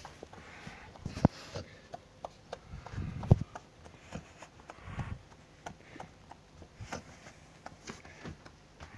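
Irregular clicks, taps and rustles from a 16½-year-old spayed Samoyed in a seizure, its body and legs moving against the wooden floor under a restraining hand, with louder knocks about a second in and just after three seconds and dull thuds around three and five seconds. The seizure, epileptic in appearance, is caused by a brain tumour pressing on the brain.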